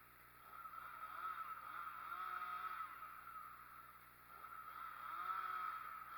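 A faint engine that swells and fades twice, its pitch steady.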